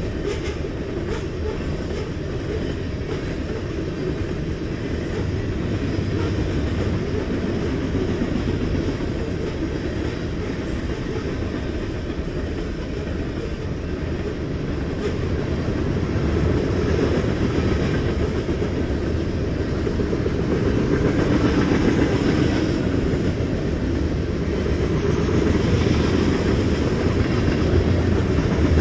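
Freight train of covered hopper cars rolling past, its wheels running on the rails in a steady rolling noise that grows a little louder in the second half.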